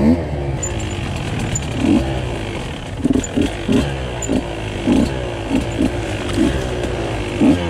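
Husqvarna TE 150 two-stroke dirt-bike engine under way, its pitch rising and falling with the throttle. From about three seconds in it surges in short, repeated bursts of throttle, roughly two a second.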